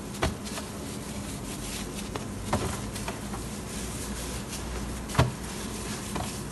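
A steady low hum with a few light clicks and knocks, as a plastic-gloved hand pinches off çiğ köfte paste from the mound on a stainless steel tray.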